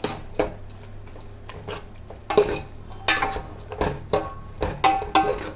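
A spoon stirring and scraping a wet mix of mushrooms, paneer and soya chunks in a cooking pot, with irregular clinks against the pot over a low steady hum.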